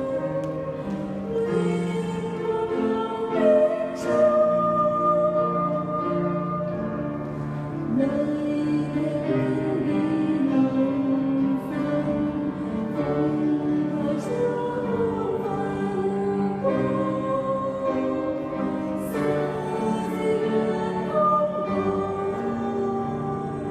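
Small mixed choir of women and men singing a Vietnamese hymn in parts, holding long notes that change every second or so.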